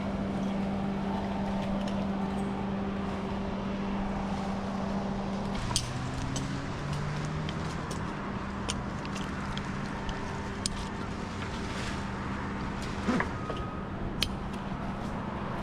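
An engine running steadily, its pitch dropping to a lower speed about six seconds in, with scattered sharp clicks and knocks over it.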